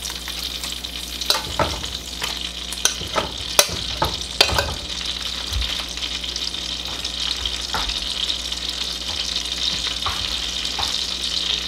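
Pats of butter sizzling as they melt in hot olive oil in a pot: a steady hiss with scattered sharp pops and crackles, most of them in the first few seconds.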